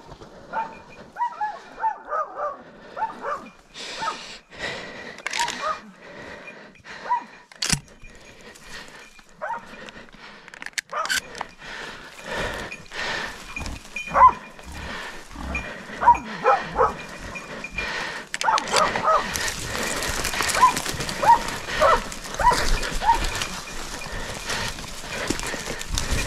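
Hunting dogs barking and yelping in scattered bursts while a hunter pushes through dry brush, with twigs cracking and branches rustling. The rustling grows louder and more continuous in the last third.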